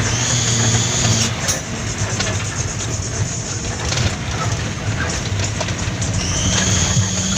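Mitsubishi Fuso 6x4 dump truck's diesel engine running under way, heard from inside the cab, with the cab and body rattling and knocking over a rough gravel road. A high whine sounds at the start, stops after about a second, and comes back near the end.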